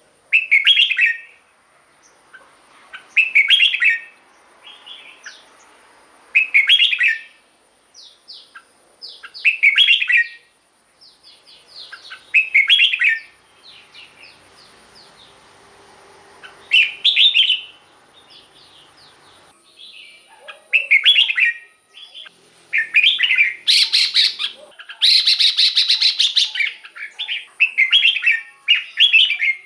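Red-whiskered bulbul singing: short, loud whistled phrases repeated about every three seconds, with quieter chattering notes between them. The phrases come faster and closer together in the last third.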